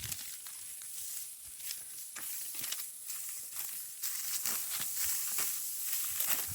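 Dry rustling and crackling: a run of short, scratchy strokes over a steady high hiss.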